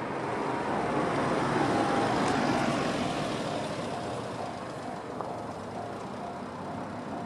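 JR standard electronic level-crossing alarm sounding its repeating ding, while the rumble of a passing vehicle swells and fades over the first few seconds.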